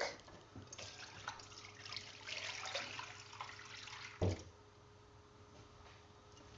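Milk being poured into a cooking pan, a steady splashing stream for about three and a half seconds, then a single knock.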